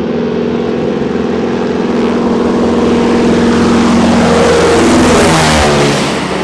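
Single-engine propeller plane making a low pass, its engine and propeller growing louder as it approaches, loudest about five seconds in, then dropping in pitch as it passes overhead and away.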